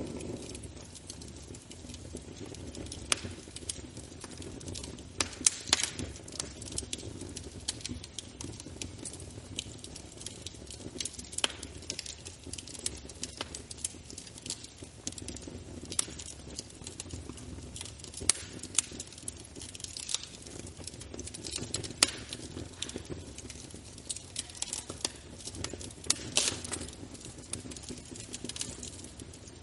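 Wood fire burning in a fireplace, crackling steadily with irregular sharp pops over a low rumble of flame.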